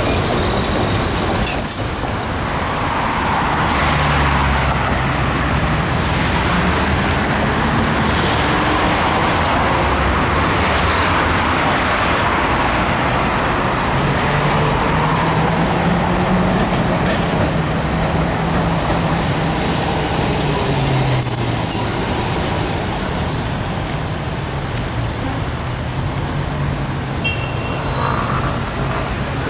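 City street traffic with a 1920s Peter Witt-type tram running on its tracks: a steady rumble of wheels and road noise, with a low motor hum that rises and falls several times.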